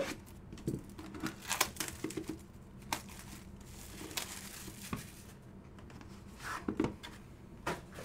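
Plastic shrink wrap being slit with a blade and torn off a sealed trading-card box, crinkling, with scattered sharp taps and clicks as the box is handled.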